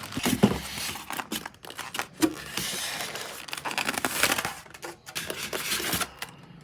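Product packaging being handled and unwrapped: crinkling, rustling and tearing, broken by many small clicks and knocks.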